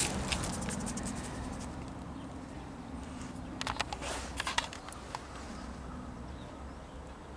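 Faint outdoor background: a steady low rumble, with a short run of light clicks and taps about halfway through.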